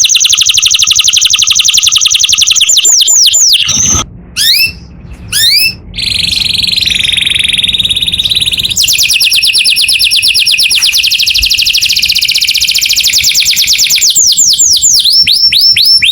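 Canary singing loud, fast trills of rapidly repeated notes, with runs of quick down-slurred whistles. About four seconds in, the song breaks off for a second or two into a few separate notes, then resumes with long rolling trills.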